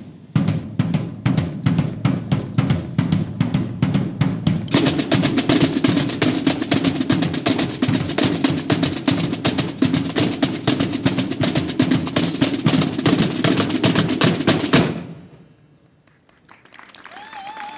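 A marching band drum corps plays a drum display: four rope-tension snare (side) drums with a bass drum, in fast stick patterns and rolls. The drumming gets denser about five seconds in and stops suddenly near the end.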